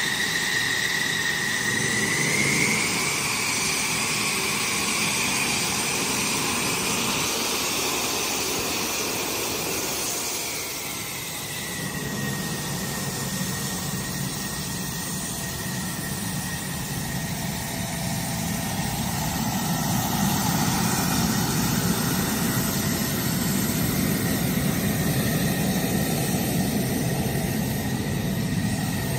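F-16 fighter jet's turbofan engine running at taxi power, a steady high whine over a broad rumble. The whine rises a little about two seconds in and falls back about eleven seconds in, and the low rumble grows louder in the second half as the jet taxis away.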